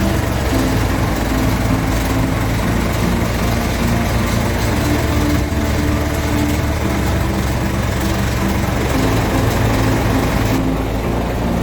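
Diesel engine of a Mitsubishi Fuso Super Great truck running steadily at low revs.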